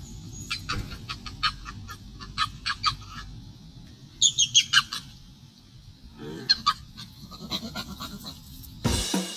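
Long-tailed macaques giving runs of short, high, squeaky calls, several a second, in three bursts. Music starts loudly just before the end.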